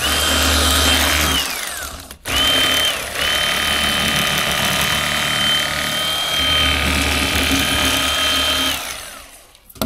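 Old Timer electric fillet knife running in three bursts: a short one, a brief one, then a long run of several seconds. Each ends with its whine sliding down in pitch as the motor winds down. Its blades are cutting a fillet off a crappie along the backbone.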